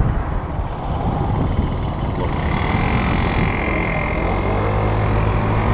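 Moped scooter engine heard from on board while riding, with a rough rumble of wind on the microphone at first; a steady engine note comes through about two seconds in and grows clearer toward the end.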